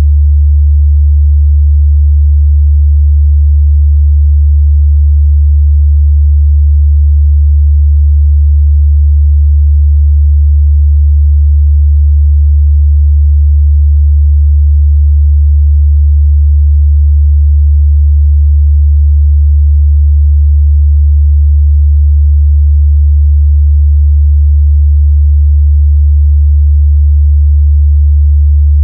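A steady, loud 73 Hz sine-wave test tone: a pure, unbroken low hum held at one pitch and level.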